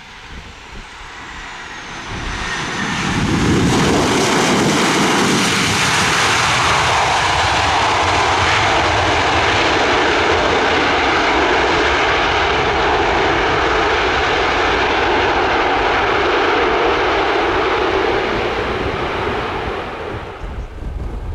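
Boeing 737 jet landing: after touchdown, its engines run up into reverse thrust, a loud steady roar that holds for about fifteen seconds and then dies away as the jet slows on the runway.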